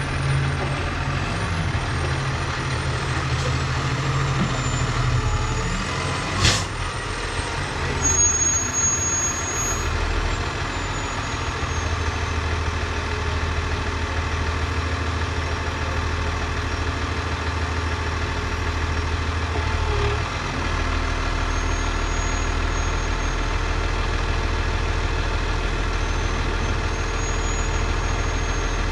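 Heavy vehicle engine running steadily under hay-bale loading work, with a faint high whine above it. There is one short, sharp burst about six and a half seconds in, and the low engine note changes and steadies about twenty seconds in.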